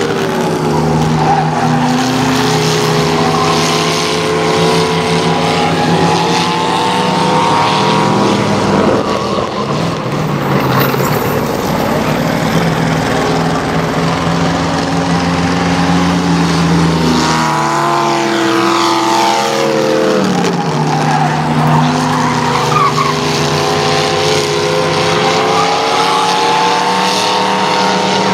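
Race-car engines, several at once, run hard as a field of old stock cars laps an oval track. The overlapping engine notes keep rising and falling as the cars accelerate, lift and pass.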